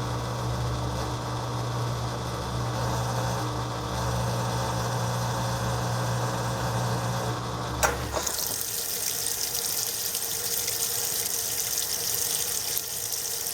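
Haier HLP23E portable washing machine's motor hums steadily, then stops with a click about eight seconds in. Cold water then starts rushing steadily into the tub as the machine fills for the rinse.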